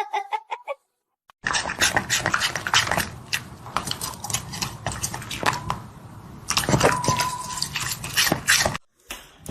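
A dog giving a quick run of short, high, pitched whimpering yelps. After a cut comes a busy stretch of clattering knocks and scrapes, with one brief held whine about two-thirds of the way through.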